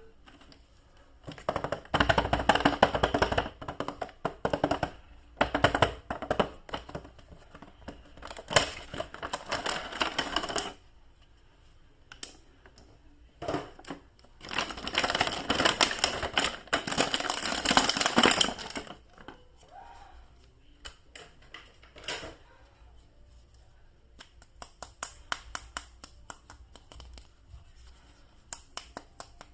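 Plastic toy packaging being handled and opened, crinkling and rustling in several long bursts, then a run of small clicks and taps in the second half.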